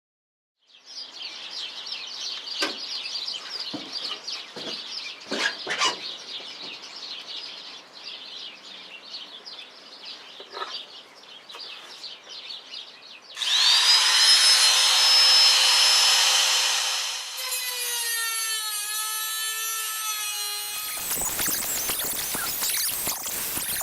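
Handheld rotary tool (Dremel) cutting off steel screw tips. About 13 s in it spins up to a loud, steady high whine, and from about 17 s its pitch wavers and sags as it bites. Harsh grinding follows near the end. Before the motor starts there is scratchy rubbing and scraping with a few knocks.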